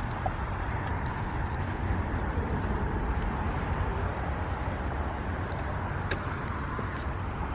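Steady outdoor background noise with a strong low rumble and a few faint clicks.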